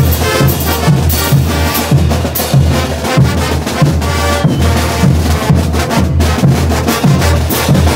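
Bolivian brass band playing a morenada: bass drums and snare drums keep a steady heavy beat with repeated crash cymbals, under sustained brass.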